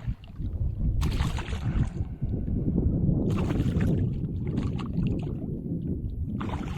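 Water and hull noise in a fishing kayak: a continuous low rumble, with three brief noisy bursts about a second in, a little past the middle, and near the end.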